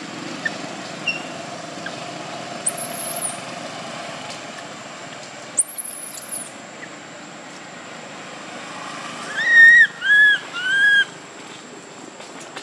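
Baby long-tailed macaque giving three loud, arched crying calls in quick succession near the end, after two brief, very high squeaks earlier, over a steady background hiss.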